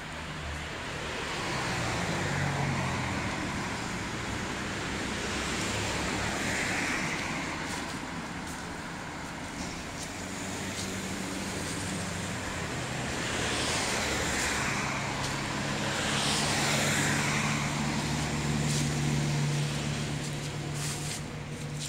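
Street traffic: cars passing one after another over a steady low engine hum, the sound swelling and fading with each pass.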